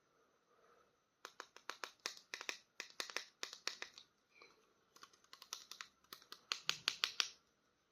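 Plastic toy packaging being handled, giving rapid runs of sharp clicks and crackles, several a second, in two bursts with a short pause between.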